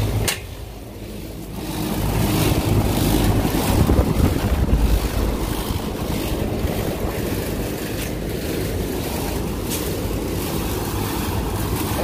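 York micro-channel air-conditioning units running, their condenser fans and compressors giving a steady mechanical whirring hum, with a short dip in loudness about half a second in. Their condenser coils are packed with debris, and the technician suspects they are running at very high head pressure.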